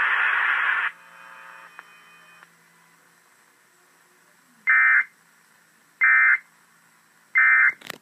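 Emergency Alert System End-of-Message signal played from a laptop: three short, identical screeching bursts of SAME digital data, about a second and a quarter apart. Before them, a burst of radio hiss cuts off within the first second.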